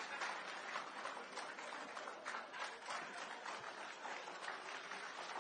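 A crowd applauding: a faint, even patter of many hand claps.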